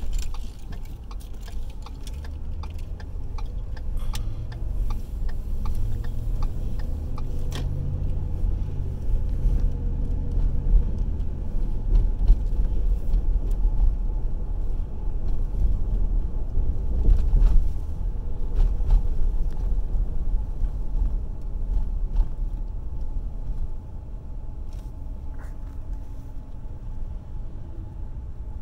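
Road and engine noise inside a moving car's cabin: a steady low rumble, louder for a while in the middle and easing off near the end, with small rattles and clicks in the first several seconds.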